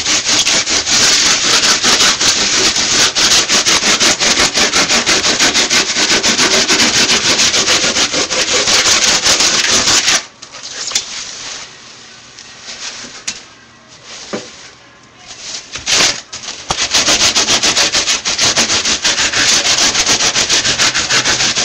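Fast, steady scraping strokes of a hand abrasive tool shaving down a Styrofoam block. About halfway through the strokes stop for several seconds, then resume.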